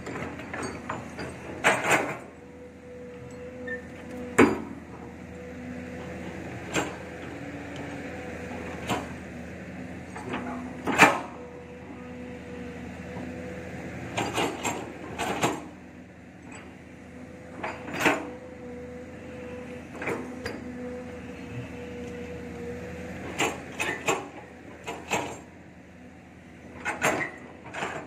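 SK07 long-arm excavator running steadily with a constant engine and hydraulic drone, while its bucket works the earth, giving irregular sharp knocks and clanks. The loudest knock comes about eleven seconds in.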